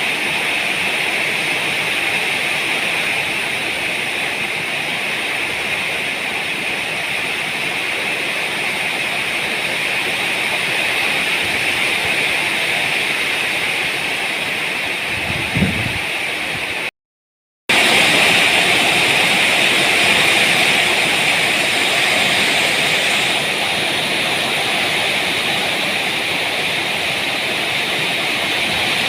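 Heavy rain pouring down steadily as an even, loud hiss. There is a short low thump near the middle, and the sound cuts out completely for under a second just after it.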